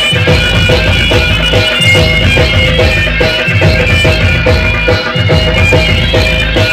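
Folk-style dance music played loud through a DJ sound system: a heavy, pulsing bass beat with a sustained high melody line over it.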